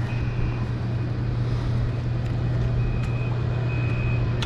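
A steady low motor-like hum with a faint high tone coming and going above it.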